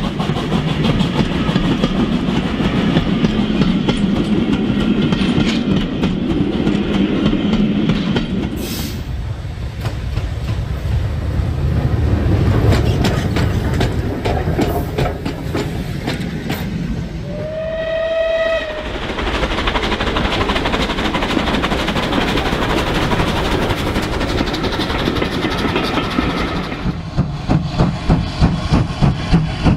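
OO gauge model trains running on the layout's track: a steady rumble of wheels and motors. A single steam-whistle blast of about a second sounds roughly two-thirds of the way through, and a regular pulsing beat sets in near the end.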